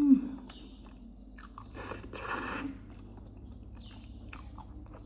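A person eating noodles from a fork, slurping and chewing, with a slurp right at the start and another, longer one about two seconds in, and a few light clicks in between.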